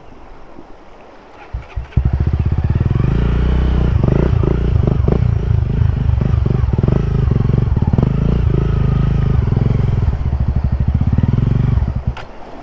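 Motorcycle engine coming in loud about two seconds in and running hard under throttle, pulsing unevenly with scattered knocks and clatter, then dropping away near the end.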